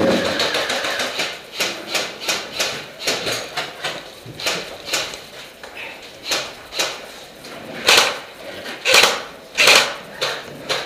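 A run of irregular sharp knocks and clicks, about one or two a second, with three louder ones near the end.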